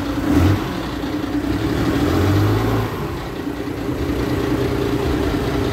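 Forklift engine running just after starting, given the throttle lightly twice. It fired at once and runs smoothly, a healthy-sounding engine.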